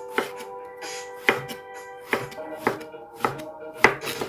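Chef's knife slicing eggplant into half-moons on a wooden cutting board: about six sharp knocks of the blade meeting the board, irregularly spaced, with background music underneath.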